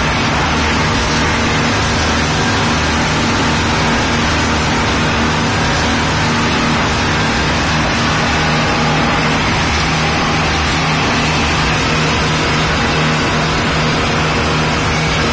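Passenger speedboat's engines running steadily at speed, a constant low drone under an even rush of water and wind, heard inside the cabin.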